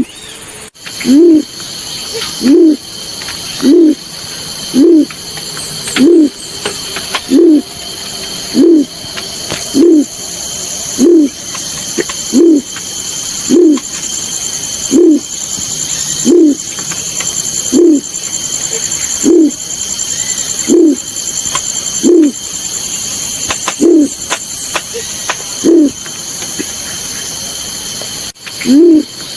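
Balorinay bird call used as a lure: a single low hoot, rising then falling, repeated evenly about once every second and a quarter, with one short pause near the end. A steady high-pitched insect chorus runs underneath.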